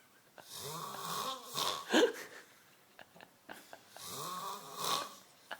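A man snoring in his sleep: two long snores, each swelling to a louder snort near its end.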